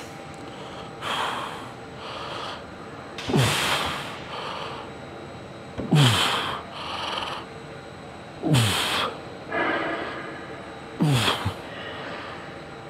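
A man's forceful, grunting exhalations while straining through repetitions of a heavy adductor-machine set, one roughly every two and a half seconds, each voiced part falling in pitch, with quicker inhalations between.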